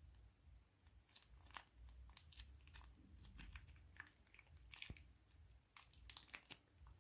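Faint, irregular crinkling and crackling of thin plastic being handled, sharp crackles from about a second in until near the end.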